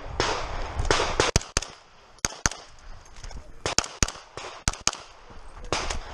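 MP5 carbine firing about a dozen shots, mostly in quick pairs with short pauses between them.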